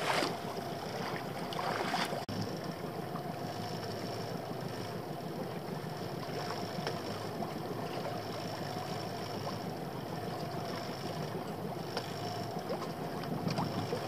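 Water lapping and washing against the hull of a small open boat drifting at sea, with wind on the microphone and a faint steady tone underneath. The wash is a little louder in the first two seconds.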